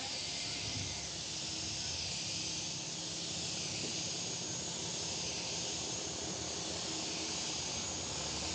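Gravity-feed compressed-air paint spray gun held on the trigger, giving one long, steady hiss of air and atomised paint as a coat is sprayed onto a repaired panel.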